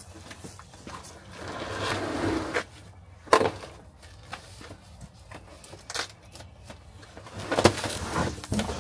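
Large cardboard box holding a mini-split outdoor unit being slid and handled out of a van's cargo bay: a scraping slide about two seconds in, then a few sharp knocks, the loudest cluster near the end.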